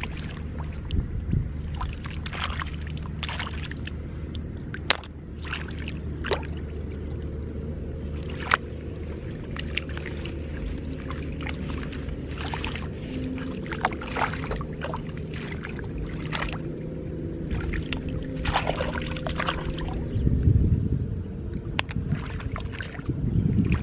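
Hands splashing and sloshing in shallow water, with scattered small splashes and clicks as snails are picked from among water lilies. Under it runs a steady low motor drone.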